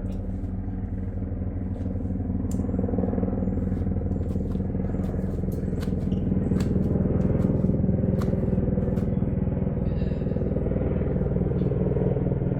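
A steady low mechanical hum, like an engine running, that grows a little louder partway through, with scattered light clicks over it.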